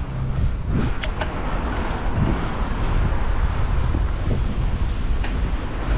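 Wind rushing over the microphone on top of steady road traffic noise, the low rumble of vehicles on a city street, heard while riding.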